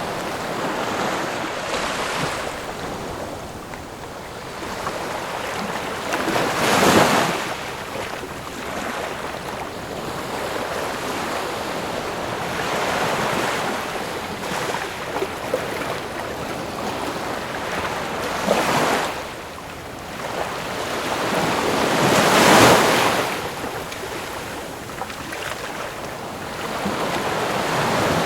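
Ocean waves breaking on the shore in a steady wash of surf. Several waves crash and swell louder, the strongest about seven seconds in and again near the two-thirds mark.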